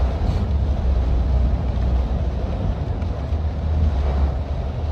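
Steady low rumble of a vehicle moving along a flooded road.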